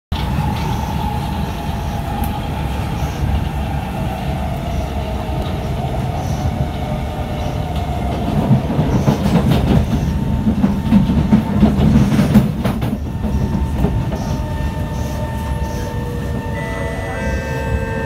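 C151 MRT train heard from inside the carriage as it slows into a station: a steady rumble of wheels on rail with a motor whine falling in pitch at the start, louder rattling and clicks about halfway through, and a few steady tones with one falling whine near the end as it brakes.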